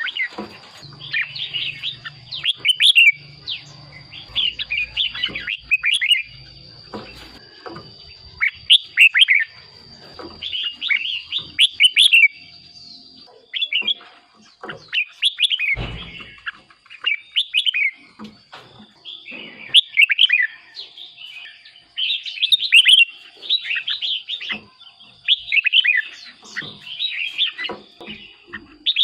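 Red-whiskered bulbul singing: short, bright warbled phrases, one after another every second or two. A faint steady high whine runs underneath, and a single soft knock comes about halfway.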